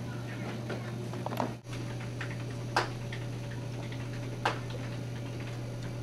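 Room tone with a steady low hum, small scattered ticks and two sharp clicks, about three and four and a half seconds in. The sound cuts out briefly about one and a half seconds in.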